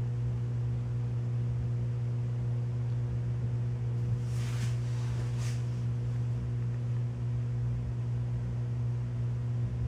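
A steady low hum with several constant tones, and two brief swishes about four and a half and five and a half seconds in.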